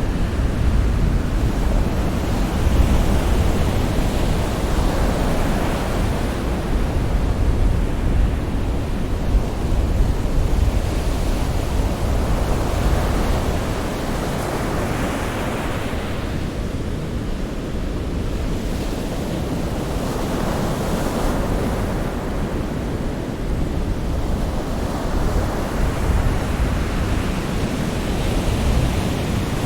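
Sea waves washing in and breaking in slow, overlapping swells every few seconds, over a steady low rumble of surf.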